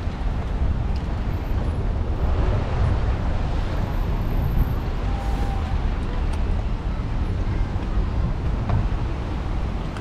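Street ambience of cars passing on a road, heard as a steady, even low rumble.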